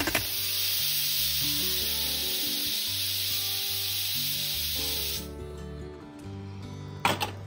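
Stainless-steel pressure cooker venting steam through its pressure valve: a loud, steady hiss that cuts off suddenly about five seconds in. Short metallic knocks of the lid come at the start and near the end, over light background music.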